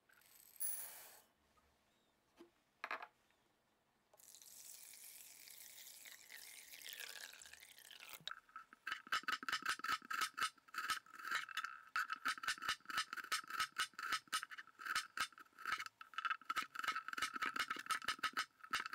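Dry rice poured into a glass bowl with a brief rattle, a light knock, then water poured over the rice for a few seconds. From about eight seconds in, a chef's knife chops garlic on a wooden cutting board in quick, even strokes, about four a second.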